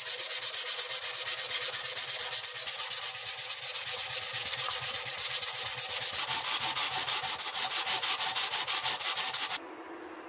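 A strip of abrasive sanding cloth pulled quickly back and forth, shoeshine-style, across the striking face of a steel hammer head held in a vise: an even rasping in rapid regular strokes. It stops abruptly near the end.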